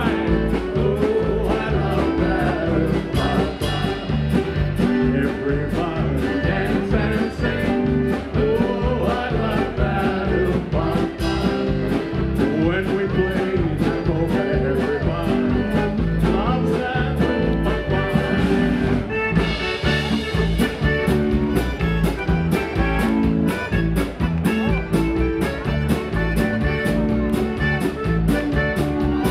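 Live polka music: an accordion over a steady beat, with a man singing into a microphone.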